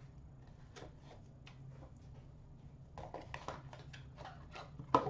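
Small white cardboard card box being opened by hand and the cards slid out: faint scattered taps and scrapes of cardboard, busier in the last two seconds, over a faint steady low hum.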